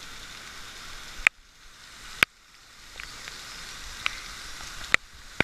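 Waterfall and its spray making a steady hiss, like rain, broken by five sharp clicks. After the first two clicks the hiss briefly drops away.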